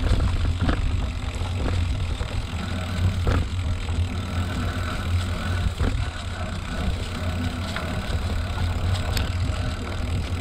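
Steady low rumble of riding along, road and wind noise picked up by a GoPro mounted on the moving vehicle, with a faint steady hum over it and a few short knocks.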